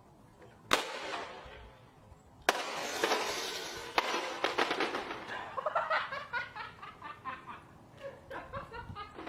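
A broken 'Mother Nature Says' talking toy is knocked sharply twice, then gives a crackling hiss and a click. Its speaker then plays a rapid, garbled run of short chirpy tones.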